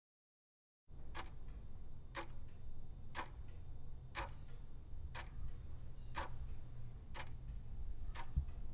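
Clock-tick sound effect for a countdown timer: eight sharp ticks, one per second, over a low steady hum.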